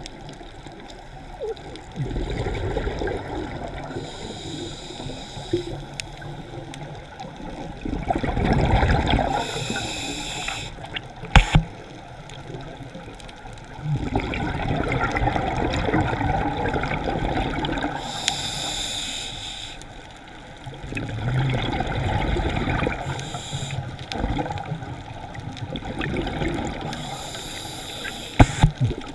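Scuba diver's regulator breathing, heard underwater: a short hissing inhale every few seconds alternates with a longer rumble of exhaled bubbles. There are two sharp knocks, one near the middle and one near the end.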